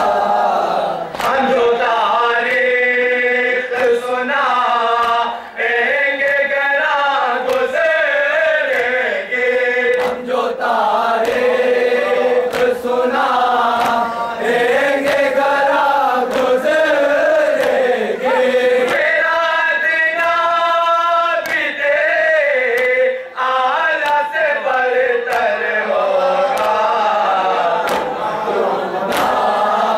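A group of men chanting a nauha, a Shia mourning lament, into microphones. The lines are long and drawn out, with short pauses for breath between phrases.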